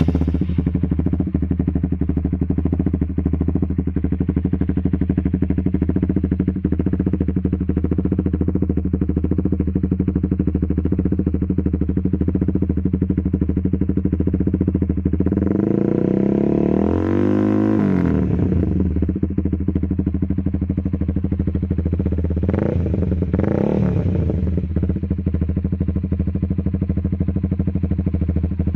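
Honda CBR150's single-cylinder engine idling through an aftermarket Proliner exhaust, blipped up and back down about halfway through, then given a shorter rev blip a few seconds later.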